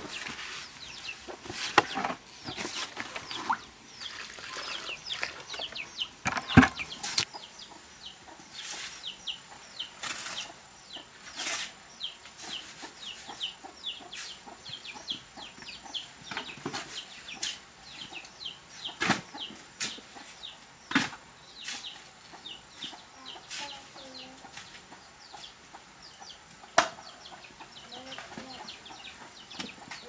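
Scattered, irregular sharp knocks and clicks, with chickens clucking in short calls near the end.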